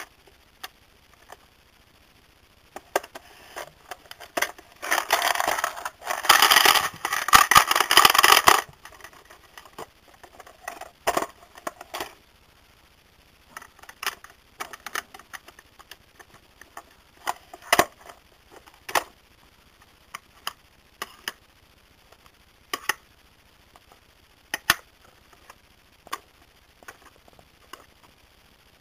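Itazura coin bank being handled and worked: scattered small clicks and taps, and a louder noisy stretch of about four seconds, broken once midway, starting about four and a half seconds in.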